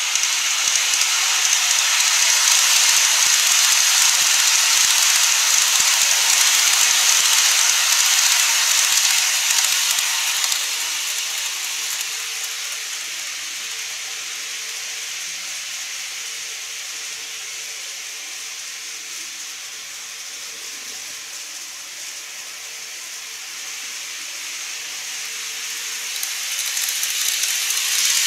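N-gauge model electric trains running on the layout's track: a steady rushing hiss of wheels and motors that swells, fades in the middle and swells again near the end as a train passes close.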